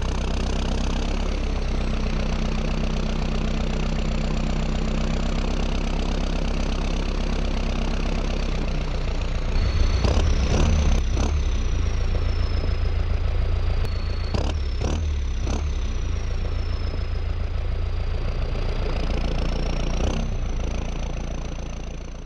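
Small DC motors of a homemade mini tractor running steadily under a low hum, with a high whine that slowly falls and rises in pitch. A few sharp clicks come about halfway through.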